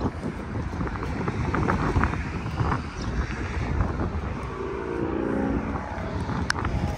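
Wind buffeting the microphone, a rough, uneven low rumble, with a faint pitched hum about five seconds in.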